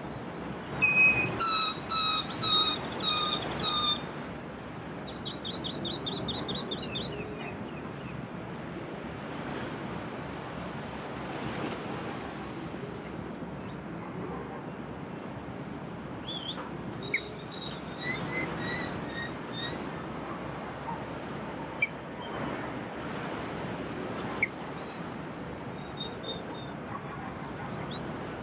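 Sea waves washing steadily on the bay, with birds calling over them: a loud series of about six repeated calls in the first few seconds, then a quick trill, and scattered chirps later on.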